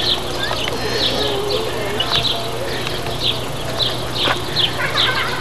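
Small birds chirping: short, high, falling chirps repeated two or three times a second, over a steady low hum.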